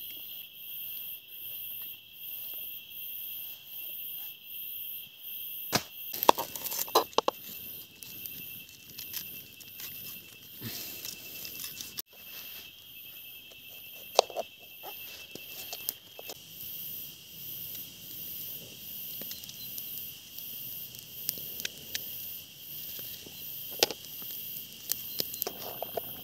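Insects trilling steadily, with a second high chirp pulsing a little more than once a second. Scattered sharp clicks and knocks cut through it, loudest in a cluster about six seconds in.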